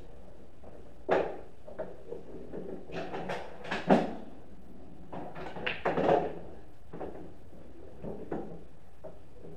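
Pool balls clacking during a shot: a sharp click of the cue striking the cue ball about four seconds in, followed by a cluster of clacks and knocks about two seconds later as balls collide and hit the cushions or pocket.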